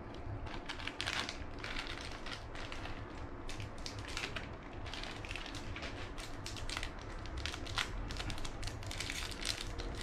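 Plastic zipper bag of cat treats crinkling in irregular bursts as it is handled.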